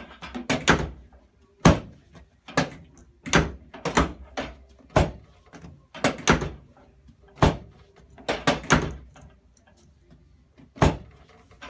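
Drop piece of a chiropractic drop table snapping down under the adjuster's thrusts during a sacrum adjustment: about a dozen sharp clacks, irregularly spaced, some in quick pairs.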